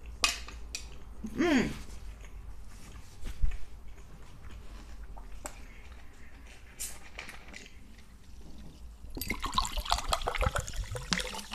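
Mouth sounds of eating spaghetti: chewing, a short slurp and a few light clicks of cutlery on the plate. Near the end, about two seconds of liquid glugging from a bottle.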